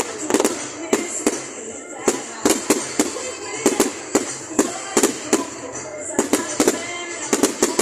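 Fireworks display: a rapid, irregular run of sharp bangs and crackles, several a second, with no pause.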